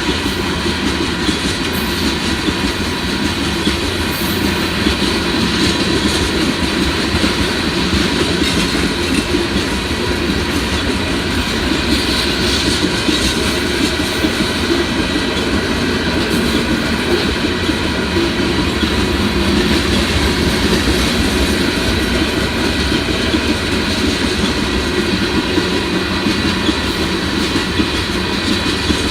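A loaded Union Pacific rock train's freight cars rolling past: a steady, loud rumble of wheels on the rails, with a thin, steady high ringing over it.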